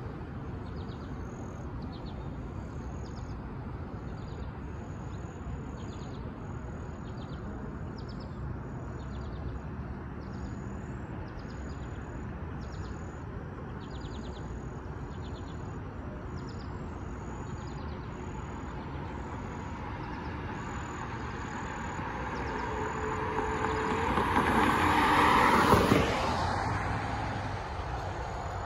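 A road vehicle passing close on the street: its noise builds from about 20 s in, is loudest about 26 s in, then quickly fades. Under it runs a steady low traffic rumble with a short high chirp repeating a bit more than once a second.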